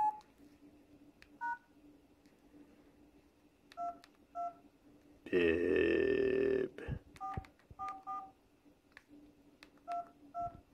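Keypad tones of a Samsung SCH-U320 flip phone as keys are pressed one at a time to type a text message: short two-tone beeps, about nine presses spread out with pauses between them. A little past halfway, a louder, pitched, voice-like sound lasts about a second and a half.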